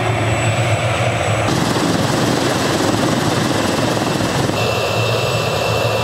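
Small MD 500-type turbine helicopter running on the ground with its rotor turning: a steady low rotor beat under a constant turbine whine and blade noise. The sound shifts abruptly twice.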